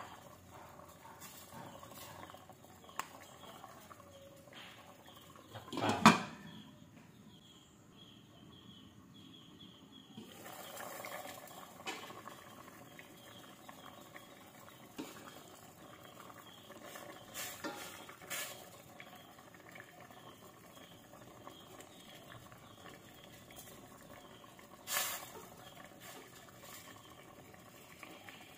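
Stainless-steel pot of sinigang fish soup boiling with a faint, crackling bubble, and a wooden spoon stirring and tapping in the pot partway through. A sharp knock about six seconds in is the loudest sound, with another knock near the end.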